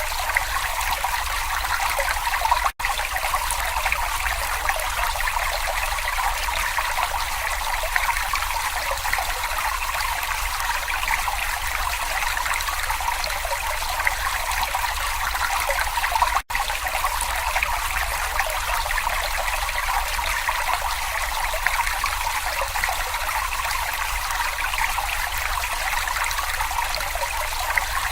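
Small stream babbling and trickling steadily, cutting out for an instant twice.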